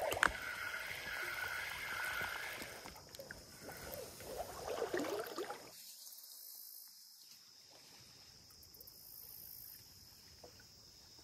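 Faint water swishing and splashing around a wader in a shallow river for the first half, then near quiet. A thin, steady high insect drone runs underneath throughout.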